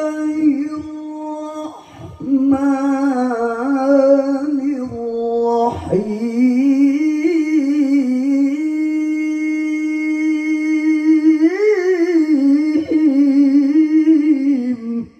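A man reciting the Quran in the melodic tarannum style, amplified through a microphone and PA sound system. He holds long notes with wavering ornaments, breaking off briefly about 2 and 6 seconds in, and rises in pitch about 11 to 12 seconds in.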